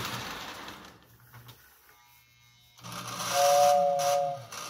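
Lionel 1666 O-gauge steam locomotive running with a steady whirr that fades out within the first second as it stops. About three seconds in, the 2689W tender's motor-driven whistle sounds: a low motor hum under a steady two-note chord, held for about a second and starting again at the very end.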